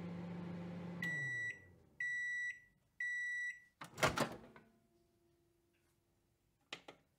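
Microwave oven finishing its cycle: a low running hum winds down about a second in, followed by three beeps about a second apart signalling that the timer has run out. About four seconds in comes a loud clunk of the door being opened, then a couple of faint clicks near the end.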